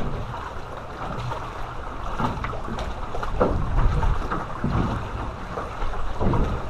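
Wind buffeting the microphone, with small waves lapping and slapping irregularly against the jon boat's hull.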